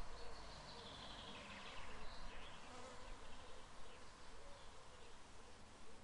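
Faint insect buzzing over low background hiss, a little stronger in the first couple of seconds.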